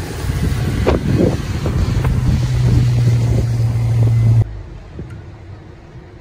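Wind buffeting the microphone aboard a moving pontoon boat, with the boat motor's low steady hum coming in about two seconds in. Both cut off abruptly a little after four seconds, leaving a much quieter steady background.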